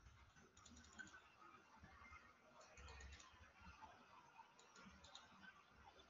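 Faint clicking from computer input, heard in short clusters about two seconds apart over near-silent room tone.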